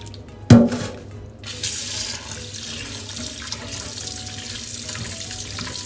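A sharp thump about half a second in, then a kitchen tap running steadily into a glass bowl in a stainless steel sink while hands rinse the flour off raw shrimp.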